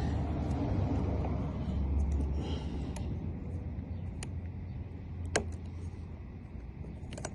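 Low, steady vehicle rumble that slowly fades, with a few short sharp clicks scattered through it.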